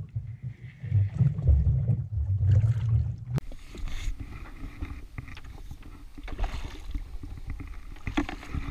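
Gusty wind rumble on the microphone over water lapping at a jet ski's hull, changing suddenly about three seconds in to quieter lapping with small splashes as a hooked snapper is brought to the surface.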